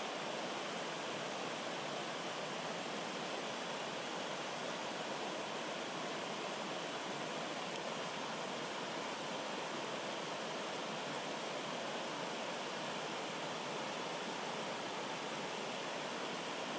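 Rocky stream rushing and splashing over small cascades between boulders: a steady, unbroken rush of water.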